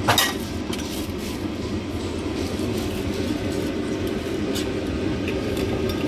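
Steady street-stall din, a low hum of traffic and cooking, with one sharp clatter right at the start and a few faint clinks of metal bowls and utensils later.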